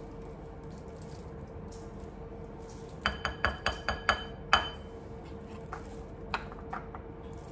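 Spoon tapping against a glass mixing bowl to knock off cornstarch: a quick run of sharp, ringing clinks starting about three seconds in, the loudest near the middle, followed by a few fainter taps.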